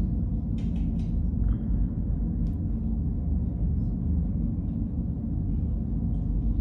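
Steady low rumble with a low hum, with a few faint light clicks.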